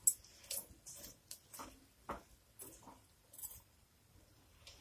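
Metal spoon stirring chopped red peppers in a stainless steel pot: faint, irregular scrapes and clicks of the spoon against the pot, the loudest right at the start.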